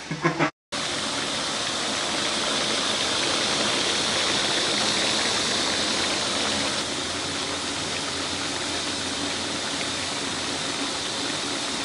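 Chopped wild hog meat and fat sizzling as they fry in a large aluminium pot: a steady, even hiss that starts abruptly just under a second in.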